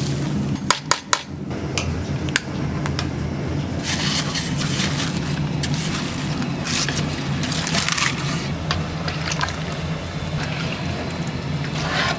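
A wooden paddle stirring and sloshing ingredients in a large aluminium stockpot: kombu, scallions, a white granular seasoning, then dried shiitake in dark liquid. There are a few sharp knocks about a second in, over a steady low kitchen hum.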